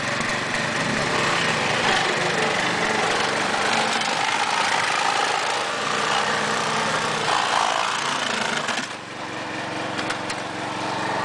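Small petrol engine running steadily at a constant speed, dipping briefly about nine seconds in.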